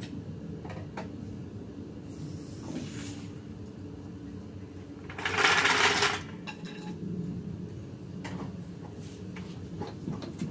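A hydraulic floor jack being let down under a car, with a loud rushing hiss lasting about a second, about five seconds in, as the car settles onto its lowered coilover suspension. A steady low mechanical hum runs underneath.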